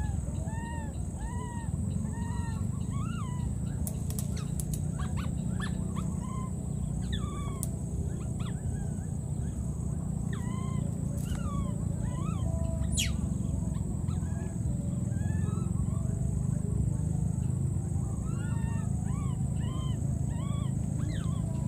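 Baby monkey crying: short, high, arching squeals, about two a second. The squeals come in runs at the start and again near the end, with scattered calls between. A steady low background noise runs underneath.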